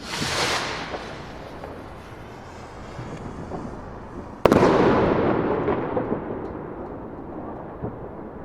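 Firework rocket launching with a hissing whoosh that fades over about a second. About four and a half seconds in, the shell bursts with one sharp bang, followed by a long rumbling echo that slowly dies away.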